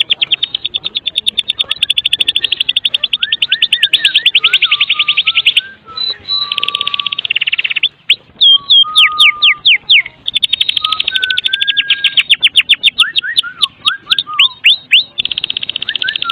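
White-rumped shama (murai batu) giving its rapid, dry rattling 'kretekan' call in several long runs, broken up by short clear whistles and quick downward-sweeping whistled notes.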